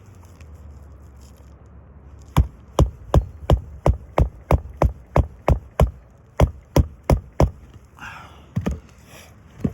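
A hand hammer driving roofing nails through an asphalt shingle: a run of about fifteen sharp, even blows at roughly three a second, then two more strikes after a short pause.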